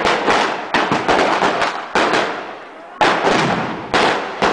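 Firecrackers going off in rapid, irregular succession, several loud bangs a second, each trailing off in an echo. A short lull comes about two and a half seconds in, then the bangs start again.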